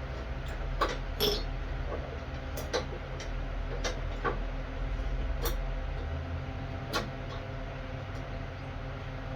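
Scattered sharp clicks and light knocks of hand tools and metal parts being handled while working on a riding mower's deck brake assembly, about eight in the first seven seconds, over a steady low hum.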